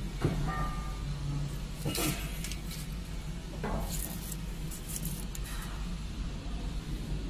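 Crisp, dry ginger slices rattling and clinking as they are handled in a plastic dryer tray, in several short bursts over a steady low machine hum.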